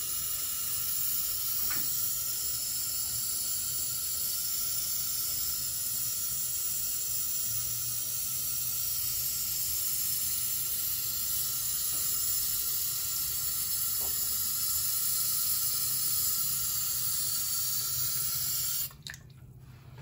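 Tap water running steadily into a sink, an even hiss that cuts off suddenly near the end.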